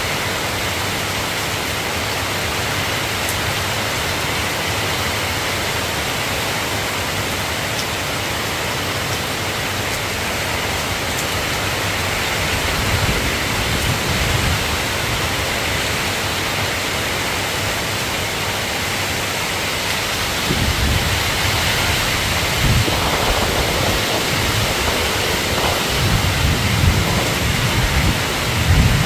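Steady rain hiss. About two-thirds of the way through, uneven low rumbling comes in and grows toward the end.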